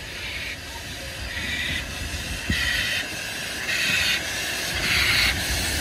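B.F.D. 3 steam locomotive working slowly past, its exhaust beating about once every second and a bit over a low rumble of the running gear. The beats grow louder as it draws near.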